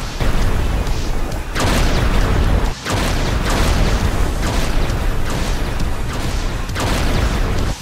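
Heavy booming and rumbling crashes, a thunder-like sound effect, with fresh crashes about a second and a half in, about three seconds in and near the end.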